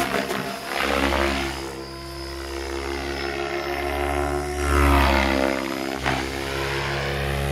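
RC helicopter flying fast passes, its rotor and drive making a steady multi-tone hum that sweeps in pitch as it goes by, loudest about five seconds in.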